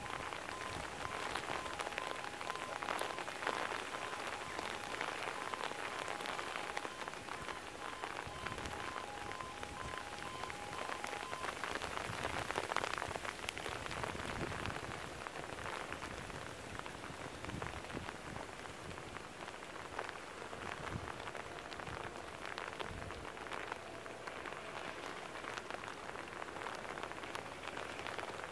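A brief shower of hailstones falling and hissing as a dense crackle of small ticks. Over it, the level crossing's E2S alarms sound a pulsing warning tone that stops about eleven seconds in, once the barriers are down.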